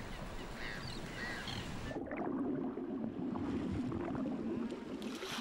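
Faint gull calls, then from about two seconds in, muffled sloshing of sea water at the surface.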